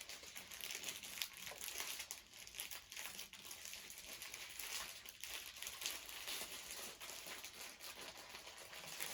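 Small plastic packets crinkling and rustling as they are handled and packed away, a quiet, continuous run of small crackles.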